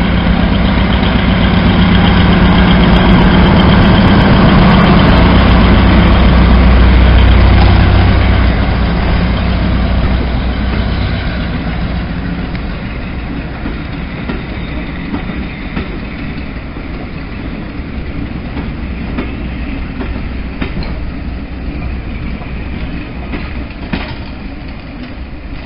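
British Rail Class 42 'Warship' diesel-hydraulic locomotive's twin diesel engines running loud under power as it pulls away, then fading after about eight seconds. The train's coaches then roll past with quieter wheel noise and occasional clicks over the rail joints.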